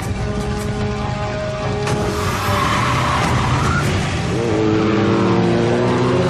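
Car tyres skidding and a car engine running over background score music.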